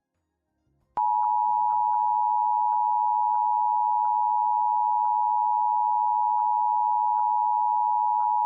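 NOAA Weather Radio 1050 Hz warning alarm tone from a weather radio receiver, sounded as part of the required weekly test: one steady, unbroken beep that starts about a second in.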